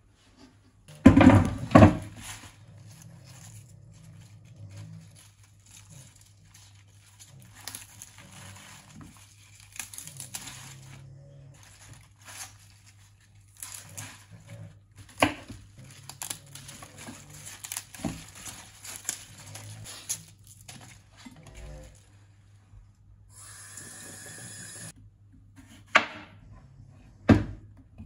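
Leafy green stalks being pulled apart and torn by hand on a wooden cutting board, a long run of soft crinkling and tearing, after a couple of loud knocks about a second in. Near the end a brief steady hiss, then a kitchen knife cutting through a zucchini and striking the board twice.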